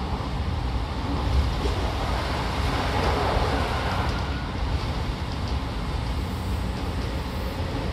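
Running noise inside an Odakyu 5000 series electric commuter train at speed: a steady rumble of wheels on rail with hissing air and track noise, swelling briefly about three seconds in.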